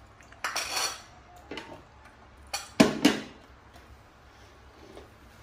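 A spoon scraping and clinking against a ceramic plate while food is scooped up: a scrape about half a second in, then three sharp clinks close together just before the middle, the second the loudest.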